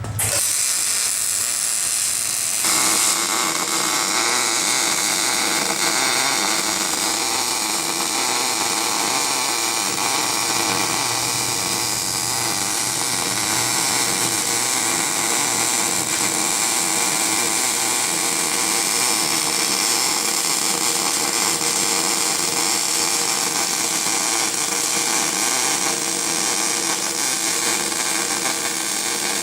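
Arc welding on a steel bumper: a steady hiss that holds on without a break, a little fuller from about three seconds in.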